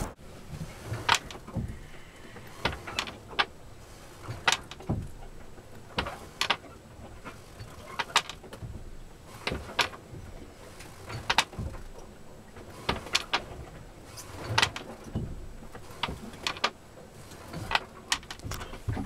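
Loose gear and fittings in a small sailboat's cabin knocking and clattering at irregular moments, a sharp knock every second or so, as the boat rolls heavily on its mooring.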